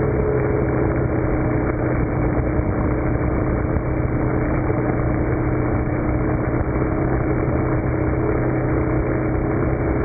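Snowmelt-fed mountain waterfall tumbling: a loud, steady rush of water, with a steady low hum beneath it.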